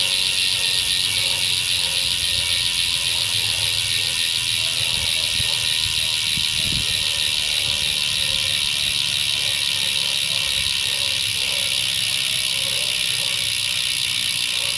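Ursus bicycle hub with three pawls freewheeling: a fast, steady ratcheting buzz of the pawls clicking over the ratchet ring as the wheel spins.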